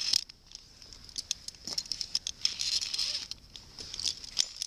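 Rustling and scraping of a caver's suit and gear against rock and dry leaves while clambering, with many scattered sharp clicks and a denser patch of rustling about halfway through.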